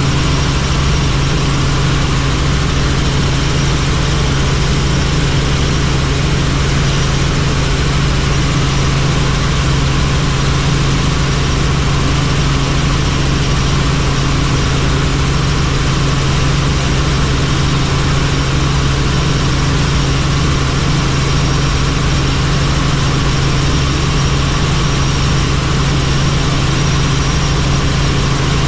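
Helicopter in flight: a steady, loud drone of engine and rotor with a strong low hum.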